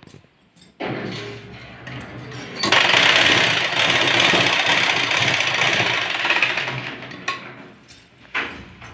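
Shakti sewing machine running as it stitches cotton fabric, a steady mechanical whirr. It starts about a second in, is loudest through the middle and tapers off near the end.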